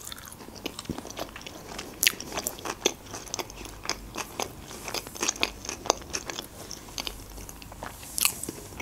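Close-miked chewing of a mouthful of homemade roll: many small irregular wet mouth clicks and bites, with no words.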